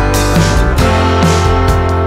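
Background music: a guitar track with a steady beat.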